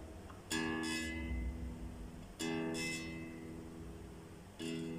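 Low E string of a Dean Razorback electric guitar plucked three times, about two seconds apart, each note ringing out and fading. The string is being tuned back up to pitch while its intonation is set.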